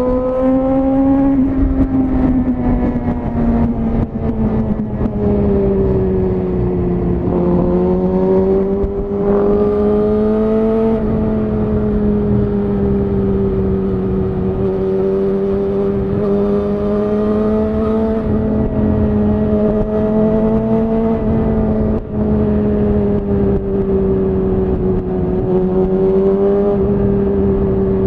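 Suzuki GSX-R1000R inline-four through a Yoshimura R-11 SQ exhaust, running at a steady cruising speed under light throttle, its pitch easing off and climbing again gently several times. There is one brief drop in loudness a little past two thirds of the way through.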